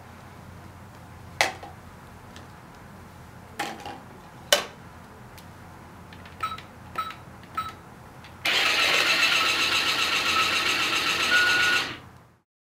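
Battery-powered toy blender: a few hard plastic clacks, then three short beeps as its keys are pressed, then its small motor whirs loudly for about three and a half seconds and stops.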